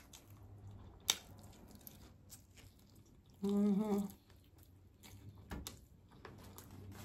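Quiet mouth sounds of a person eating: chewing with wet clicks and smacks, the sharpest about a second in. About three and a half seconds in comes a short closed-mouth 'mmm' hum.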